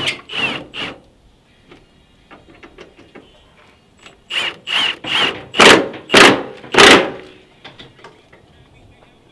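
A tool working on the car's fasteners in short bursts with a metallic squealing ring: three quick strokes at the start, then six louder ones about four to seven seconds in.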